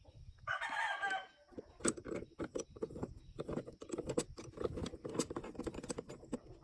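Hens cackling their egg song: a loud squawk about half a second in, then a quick, irregular run of clucks.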